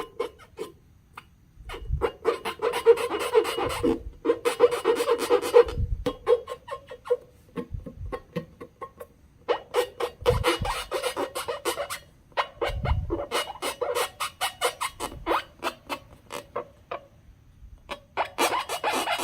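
Slime being squeezed and worked by hand: dense wet clicking and popping in several runs separated by short pauses, with a held squeaky tone under the busiest stretches.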